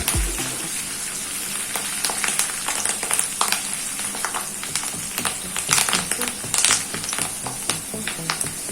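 Curry leaves frying in hot oil with ginger and garlic in a kadai: a steady sizzle with many sharp, irregular crackles and pops.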